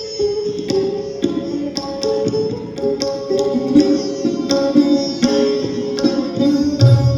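Hindustani classical instrumental music: sitar and sarod play a melodic line of plucked, sliding notes over a steady drone. Deep tabla bass strokes come in loudly near the end.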